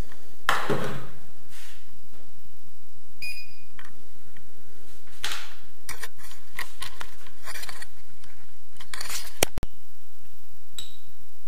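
Small metal and plastic fittings clinking and knocking as they are handled and sorted, with scattered rattles and clicks and one sharper click about nine and a half seconds in.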